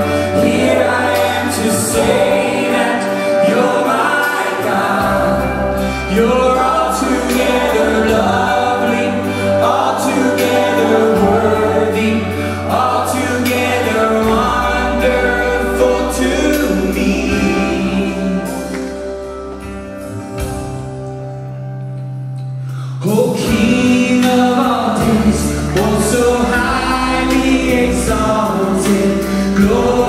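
Christian worship song sung by a man over accompaniment with steady bass notes. About two-thirds through, the accompaniment drops back to a quieter held passage, then the full sound comes back in.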